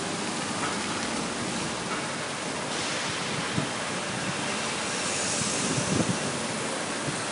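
Steady rushing background noise that grows brighter and hissier about three seconds in, with a few faint knocks underneath.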